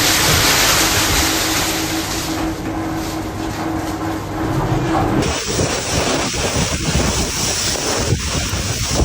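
Heavy rain pouring down in a steady hiss. About five seconds in its character shifts abruptly and grows more uneven.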